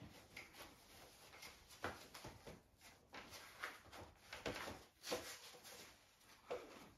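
A puppy and its mother dog play-wrestling on bedding in a wire crate: quiet, irregular scuffling and rustling with soft knocks, the sharpest about two seconds and five seconds in.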